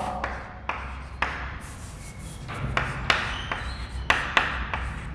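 Chalk writing on a chalkboard: irregular short taps and scratches as the chalk strikes and drags across the board.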